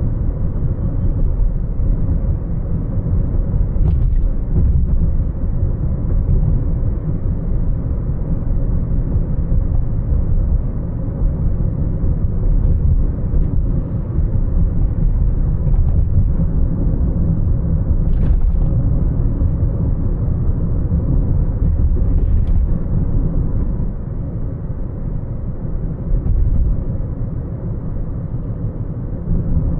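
Car driving on the road: a steady low rumble of road and engine noise, with a few faint short clicks.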